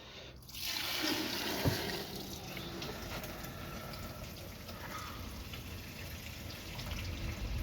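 Liquid running and trickling into a bucket: dirty white spirit mixed with milky old hydraulic oil being emptied out of a hacksaw's hydraulic tank. It starts about half a second in, with one short knock just after.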